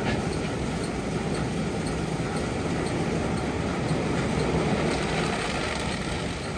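Istobal M12+ rollover car wash in its shampoo wash: the rotating CarLite wash brushes scrub the car over the running machine, a steady wash noise with a faint, quick, regular ticking.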